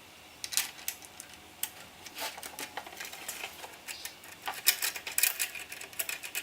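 Small hardware clicking and rattling as a mirror bracket's bolt and tightener are handled and screwed in by hand: irregular light clicks and taps, busier in the second half.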